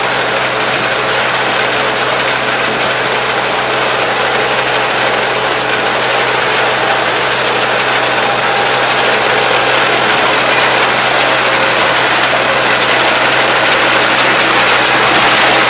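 Tractor engine and a PTO-driven STAR round baler running steadily while picking up and baling rice straw, growing slightly louder near the end.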